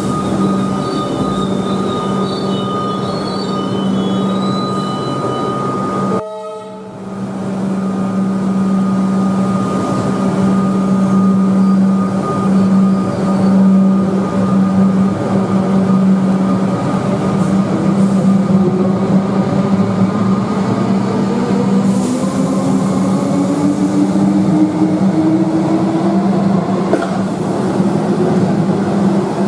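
Electric suburban train at an underground platform, giving out a loud, steady electrical hum. From about two-thirds of the way in, a whine rises steadily in pitch as the traction motors take up power and the train pulls away.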